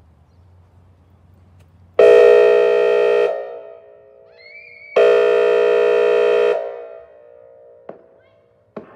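Whelen WPS-2905 electronic tsunami siren sounding two air-horn blasts for a test. The first, a little over a second long, starts about two seconds in; the second, slightly longer, starts about three seconds after it. Each cuts off into a fading echo.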